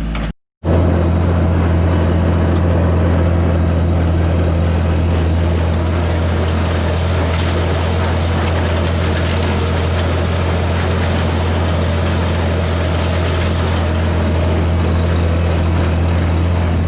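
A vehicle engine running steadily at a constant speed: an even, deep hum that does not change. It starts after a short dead gap just after the start.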